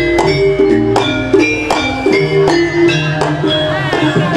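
Javanese gamelan music accompanying a jaranan dance: struck, ringing metal notes and drum strokes at a steady beat, with a wavering melodic line entering near the end.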